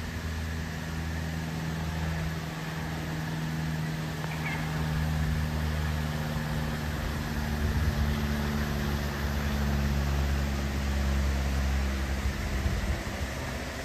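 Single-engine Cessna flying overhead: the steady drone of its piston engine and propeller, growing louder past the middle as the plane passes over, then easing off near the end.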